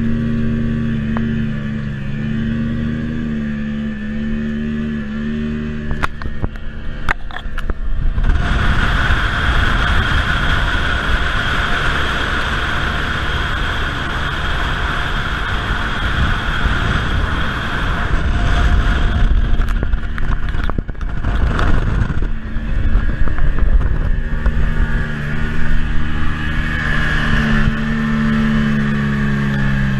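Evinrude V6 outboard motor running steadily at speed. For a long stretch in the middle it is drowned by a rush of wind and water noise, and a few knocks come about two-thirds of the way through.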